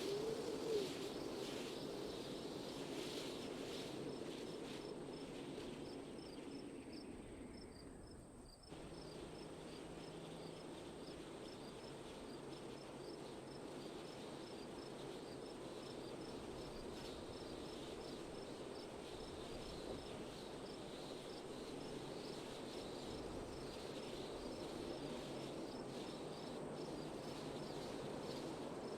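Wind blowing as a steady rushing noise that fades and then changes abruptly about eight seconds in before carrying on. Faint, evenly repeating high insect chirps run alongside it.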